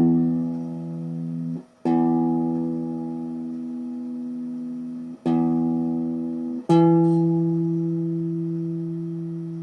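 Telecaster-style electric guitar string plucked four times, each note left to ring and decay; the last note sounds about an octave higher, as the open string is compared with the 12th-fret note to check intonation.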